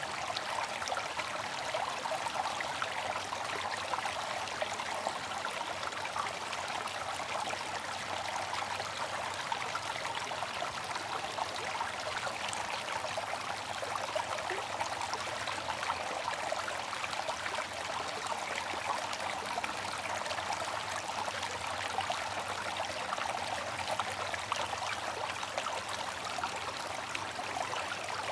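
Bamboo water fountain running: water trickling and splashing steadily, without a break.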